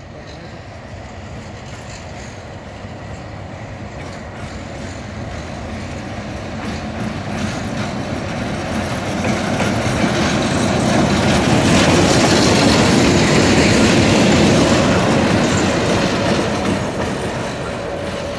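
Indian-built YDM4-class (VNR D13E) diesel-electric locomotive running light engine along the track: engine drone and wheels on the rails, growing steadily louder as it approaches, loudest about two-thirds of the way through as it passes, then easing off.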